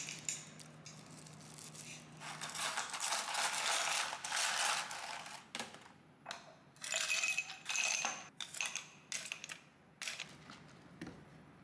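Bursts of rattling and clinking, like small hard objects being shaken or poured, with a few short clicks near the end.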